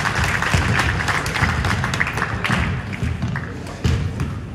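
Gymnasium crowd clapping and calling out, dying down over a few seconds, with shoe and ball taps on the hardwood court and a ball bounce near the end.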